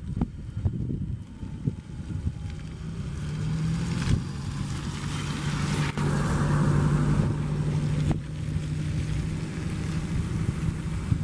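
High-speed railway comprehensive inspection train rolling past close by under its own electric power from the overhead catenary: a steady rumble of steel wheels on rail with a low hum that swells through the middle, and a few sharp clicks.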